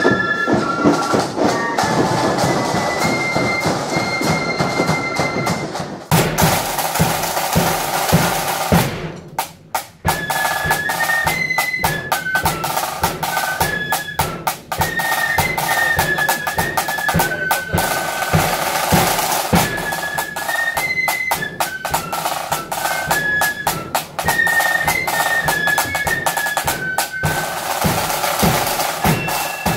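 A marching band playing: rapid side-drum and bass-drum beating under a high, stepping melody on wind instruments. The music breaks off briefly about a third of the way through and starts again.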